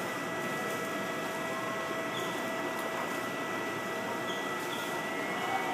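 Steady background hiss with a faint constant high hum underneath, and a few faint soft ticks.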